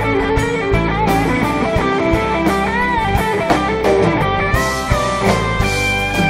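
Live folk-rock band playing an instrumental break between verses: strummed acoustic guitars and electric guitar over a steady drum beat, with a lead melody line bending over the top.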